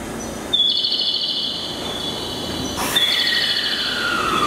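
High chirping tones, about half a second in and again from three seconds in. From about three seconds a whine falls steadily in pitch as a 207 series electric train's traction equipment starts the train pulling away.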